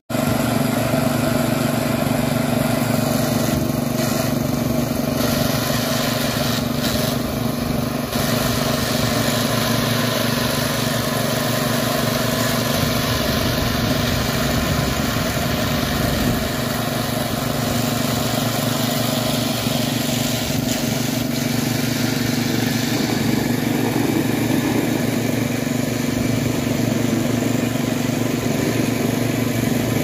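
Small petrol engine of a concrete vibrator running steadily at constant speed while its poker consolidates freshly poured concrete in the beam formwork.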